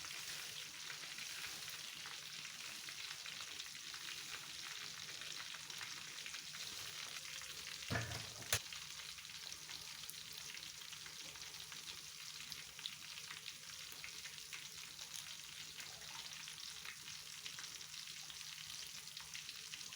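Food cooking on a stove: a steady sizzling hiss, with a brief knock about eight seconds in and a click just after it.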